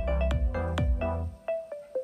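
Electronic music played back on a Harman Kardon Onyx Studio 5 Bluetooth speaker: a quick run of plucked keyboard-like notes over a steady bass, with the bass dropping out about two-thirds of the way through.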